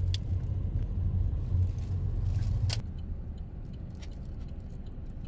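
A car's low engine and road rumble close by, loudest for the first three seconds and then easing off, with a sharp click just before it eases.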